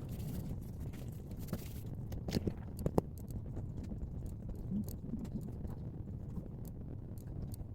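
Scattered light clicks and taps over a steady low rumble, with a cluster of sharper taps around the middle.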